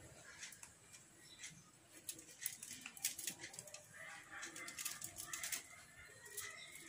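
Faint crinkling and crackling of cling film and aluminium foil as hands press a sponge cake layer into a lined tin, with a flurry of small ticks from about two seconds in.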